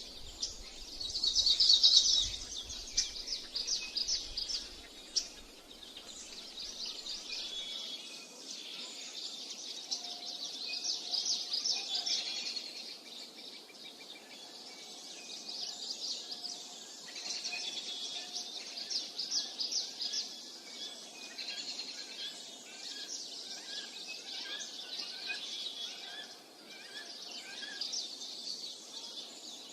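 Several birds singing and chirping together in quick trills and calls, loudest about two seconds in. A softer bird repeats a short call in the second half.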